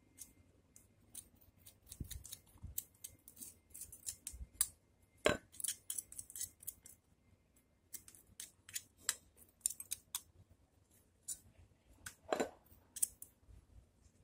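Bonsai scissors snipping twigs on a zelkova bonsai: a run of irregular sharp clicks, with two louder snips about five seconds in and near the end.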